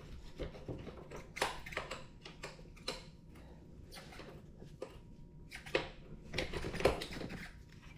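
Metal scooter parts and tools being handled: scattered light clicks, knocks and short scrapes, busiest about six to seven seconds in.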